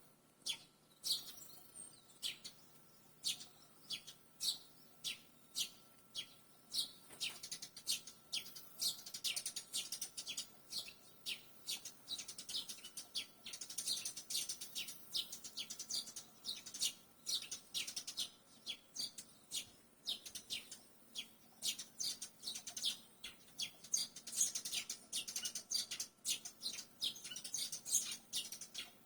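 Barn swallows calling: a steady run of short, sharp chirps, one or two a second, with stretches of quicker, higher twittering.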